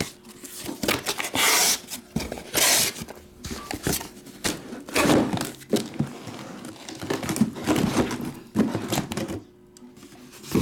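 Cardboard shipping case being opened and lifted off a stack of shrink-wrapped trading-card boxes: cardboard scraping and rubbing, with two longer rasps about one and a half and two and a half seconds in, among a run of knocks and thumps as the boxes are handled.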